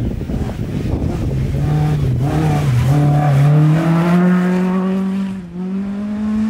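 First-generation Volkswagen Golf rally car passing at speed, its engine note climbing steadily as it accelerates. The note breaks briefly near the end, then climbs again.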